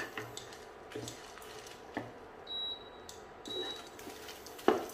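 Wooden spatula stirring and scraping a roasting masala of dal, dried chillies, coconut, onion and tomato in a nonstick pan, with a few sharp knocks against the pan about a second apart, the loudest near the end. Two faint short high beeps come in the middle.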